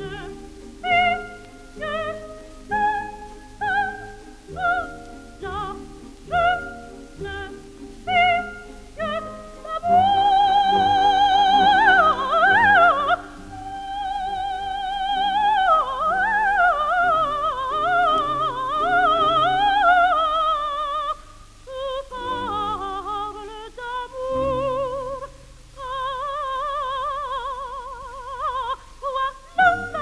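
Coloratura soprano singing a French operatic aria with orchestral accompaniment, in a 1948 recording. It opens with short, separate notes, then holds a long high note with wide vibrato about ten seconds in, followed by quick ornamented runs.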